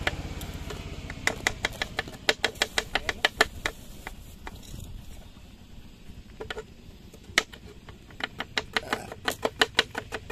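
Kitchen knife chopping a red onion on a wooden board: quick runs of sharp taps, about six a second, with short pauses between runs and a couple of single taps in between. A low hum fades out in the first second.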